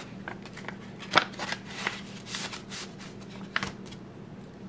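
Paper banknotes being counted by hand: a string of crisp flicks and rustles as bills are peeled off a stack, with sharp snaps about a second in and again past three and a half seconds.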